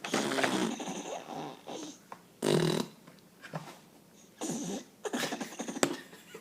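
Short non-speech vocal noises, several in a row, the loudest about two and a half seconds in.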